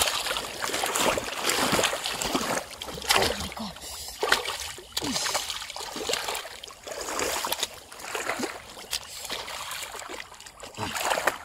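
Splashing and sloshing of shallow, muddy pond water in irregular bursts as hands churn the water and mud and a caught fish thrashes at the surface.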